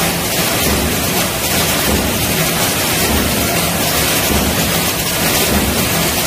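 Pail-bottom making press line running, giving a steady loud machine noise with a regular low pulse about twice a second, in time with the press cycling.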